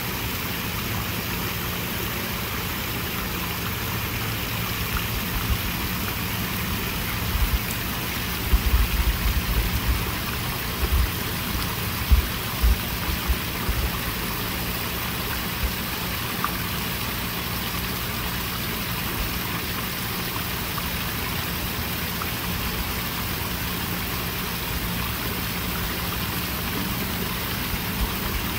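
Small pond waterfall splashing steadily into the water, with a faint low hum underneath. A cluster of low thumps comes between about 7 and 14 seconds in.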